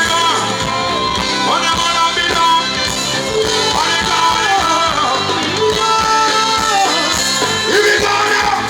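Band music with a singer's long, bending held notes over guitar and a steady beat.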